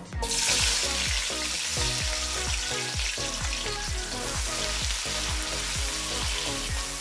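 Sliced onions hitting half a cup of hot oil in a karahi: a sudden loud sizzle as they go in, then steady frying sizzle as they are stirred with a spatula.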